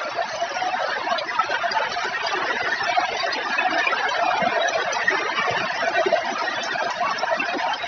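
Heavy rain falling in a steady hiss, with no thunder.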